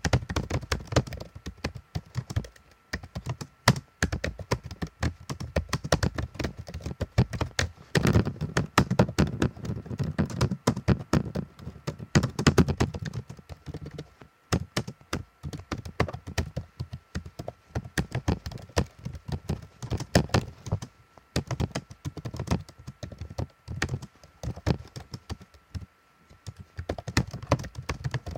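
Computer keyboard being typed on: fast, irregular key clicks, with a denser, louder flurry about a third of the way in and a few short pauses.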